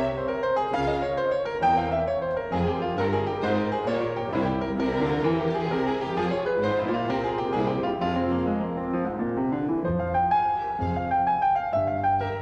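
Instrumental background music in a classical style, with piano to the fore.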